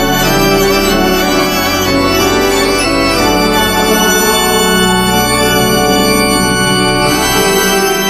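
Instrumental music: slow, sustained organ chords over held bass notes that change every second or two.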